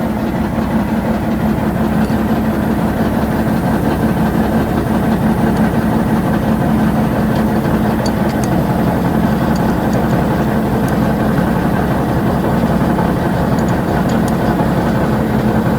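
Heavy truck's Cummins diesel engine idling steadily, with an even low pulsing that doesn't change.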